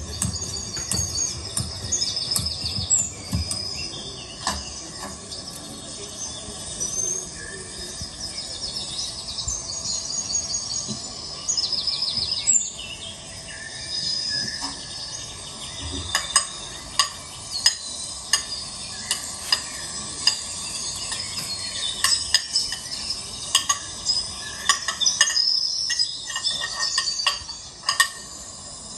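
Small birds chirping in short, high trills during the first half. From about halfway, irregular sharp clicks and taps come several times a second over a faint crackling hiss.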